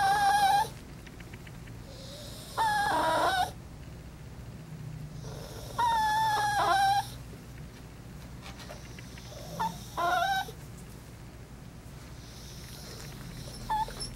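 Maltese dog whining in high, wavering cries about a second long, four of them a few seconds apart with two brief squeaks between: a small dog complaining while it is groomed.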